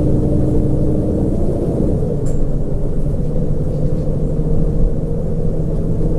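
Bus engine running with a low, steady rumble as the bus moves off at walking pace, with a short click about two seconds in.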